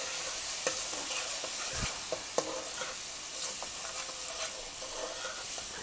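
Chopped onion, tomato and ground spices sizzling in hot oil in a pan while a metal spoon stirs them, with scattered clicks and scrapes of the spoon against the pan.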